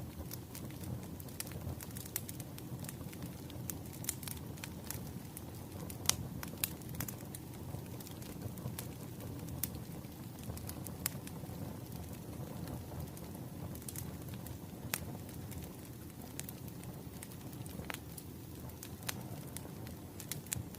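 Wood fire burning, with a steady low rumble and irregular sharp crackles and pops of burning firewood, a loud pop about six seconds in.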